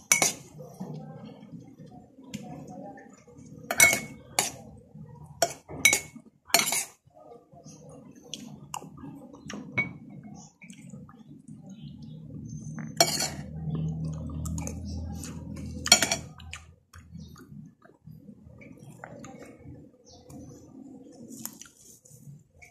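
Metal spoon and fork clinking and scraping on a plate while eating, with about eight sharp clinks: a cluster about four to seven seconds in, and two more about thirteen and sixteen seconds in.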